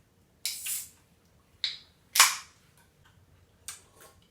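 A bottle of sparkling watermelon juice being opened: four short, sharp hisses and pops of escaping gas, the loudest about two seconds in.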